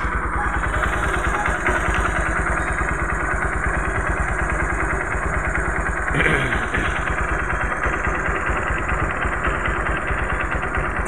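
Honda Mega Pro's single-cylinder four-stroke engine idling steadily.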